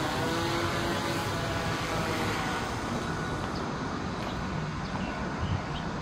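Steady rushing vehicle noise that slowly fades, with a faint engine hum dying out about a second in.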